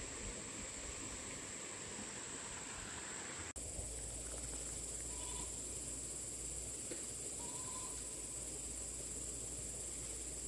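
Steady, high-pitched insect chorus. It breaks off in a sudden cut a little over three seconds in and comes back brighter, with a low hum under it.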